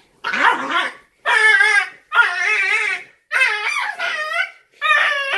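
Cane Corso puppy crying out in five drawn-out, wavering, high-pitched yelps while an adult dog pins him down to correct him. It is a protest cry, not pain: she is not hurting him.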